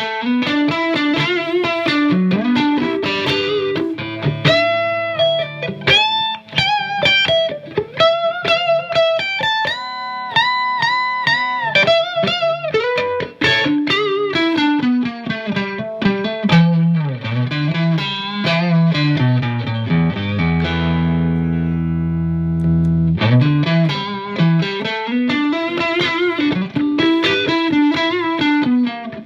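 Strat-style partscaster electric guitar on its neck single-coil pickup, played clean through a Marshall JVM210 combo amp. It plays quick single-note runs and arpeggiated chords, and about two-thirds of the way through a low chord is left ringing for a couple of seconds.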